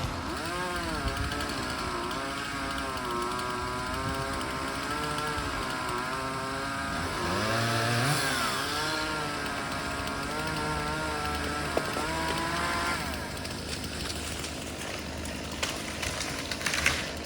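Chainsaw engine running and revving up and down repeatedly, its pitch rising and falling again and again. It eases off about thirteen seconds in, and a few sharp knocks follow near the end.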